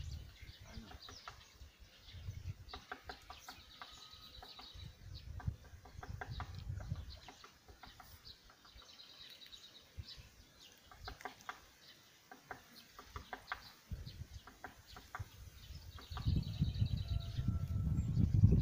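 Birds calling around a lake: many short chirps and clicking calls, with a few quick high trills. Bursts of low rumble on the microphone come and go, growing loudest near the end.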